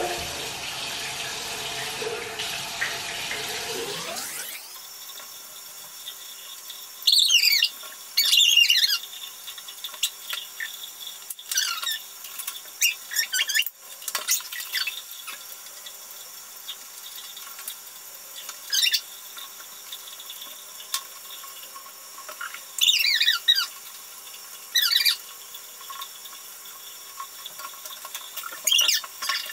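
Bathroom tap running into a sink, shut off about four seconds in. Then an 11-week-old red heeler puppy gives several short, high, falling whines as it is washed in the sink.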